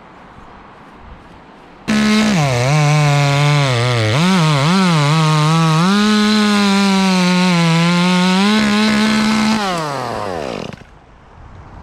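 Chainsaw running at high revs, starting abruptly about two seconds in. The pitch dips and recovers several times as the saw is loaded in the cut. Near the end the revs fall away and the sound stops.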